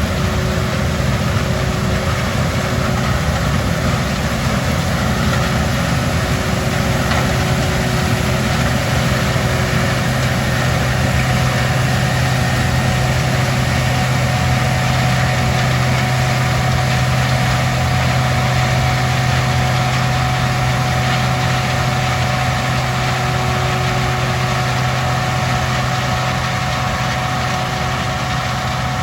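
Combine harvester running steadily in the corn field: a constant loud engine and machinery drone with a few held whining tones.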